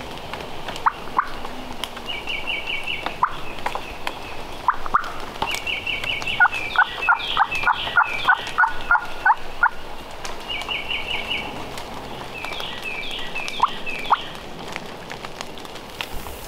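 Wild turkeys calling: four bouts of quick, rattling gobbles, with a run of about ten evenly spaced lower calls in the middle.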